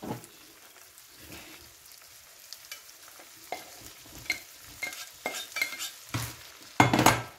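Minced-meat and vegetable filling sizzling faintly in a non-stick frying pan as a spatula stirs and scrapes it, with scattered clicks against the pan. Diced potatoes are tipped in from a pot, and a louder clatter of utensil on pan comes near the end.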